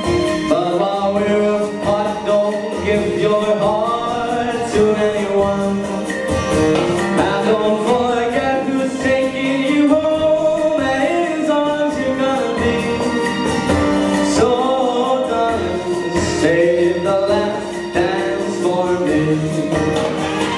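Male vocalist singing into a handheld microphone over an instrumental backing track.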